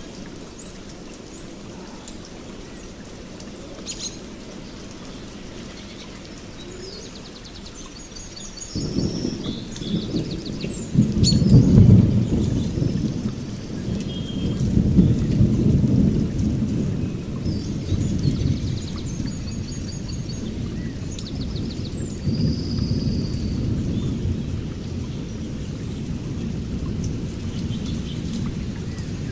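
Birds chirping throughout, with a low, rolling rumble that comes in about nine seconds in, swells loudest twice and then carries on more evenly.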